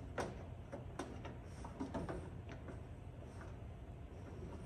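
Light, irregular clicks and ticks of an electrical wire being hand-pulled through rubber grommets in an aluminium spar, the wire rubbing and tapping against the metal, over a low steady hum.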